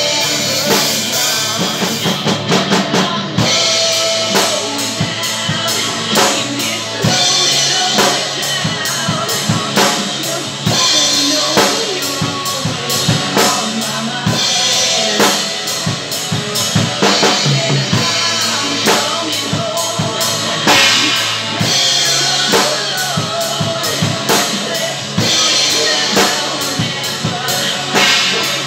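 Acoustic drum kit played live along to a recorded hard rock ballad during a passage with no singing: kick drum, snare and tom hits with repeated cymbal crashes over the sustained guitars of the backing track.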